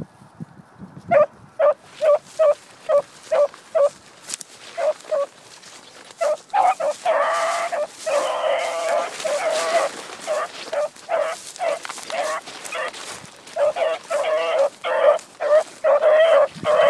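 Dogs barking repeatedly in short barks, about two to three a second, with a few seconds of dense, overlapping barking in the middle.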